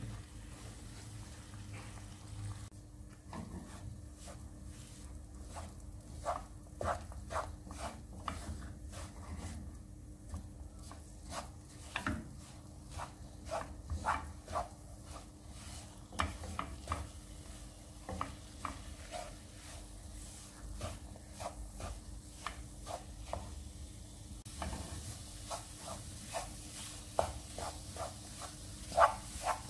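A wooden spoon stirring and scraping flour through hot butter and sunflower oil in a coated frying pan, with irregular scrapes and taps against the pan over a faint sizzle: the flour being toasted in hot fat.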